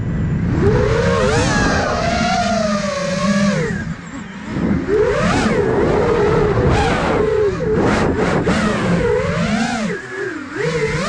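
Electric motors and propellers of an iFlight Nazgul Evoque F5 FPV quadcopter whining in flight, the pitch rising and falling with the throttle. The whine drops away briefly about four seconds in and again near the end as the throttle is cut, then climbs again.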